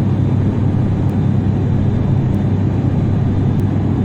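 Steady low rumble of an airplane's cabin and engine noise, with a faint tick about every second and a quarter.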